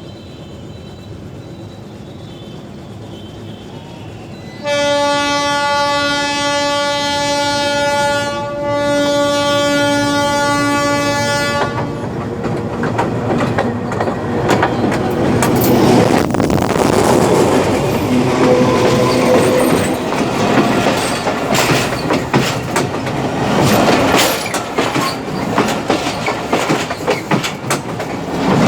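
A locomotive horn sounds two long blasts, about seven seconds in all, as a train approaches. Then the train passes directly over the camera: a loud rush of running wheels with fast, uneven clicking as the wheels cross the rail joints.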